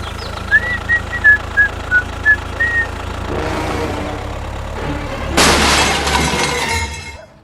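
A vehicle engine running steadily, with a few short high chirping tones in the first three seconds. About five and a half seconds in comes a loud noisy burst lasting nearly two seconds, then the sound cuts off.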